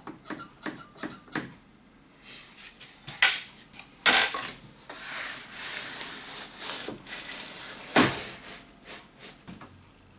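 Workshop handling noises: a quick run of light knocks and clicks, then a few seconds of rubbing, sliding noise with more knocks, and one sharp knock about eight seconds in.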